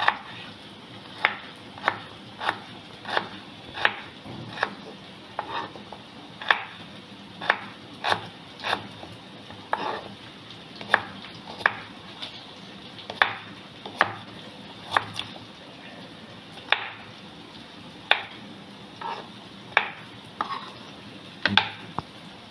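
Kitchen knife chopping garlic cloves and fresh ginger on a wooden cutting board. The blade knocks sharply on the board about once a second, unevenly spaced.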